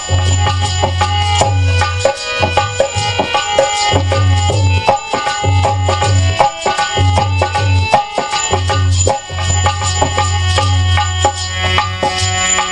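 Instrumental devotional music: tabla playing a rhythm over held melodic notes, with a deep drum tone that sounds on and off.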